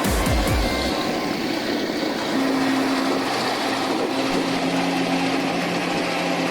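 Heavy vehicle engine running steadily, with a few low thumps in the first second.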